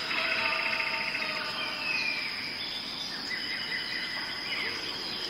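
A busy natural chorus of overlapping bird calls: short chirps, a rapid trill near the start and several gliding calls, over a steady high-pitched insect drone.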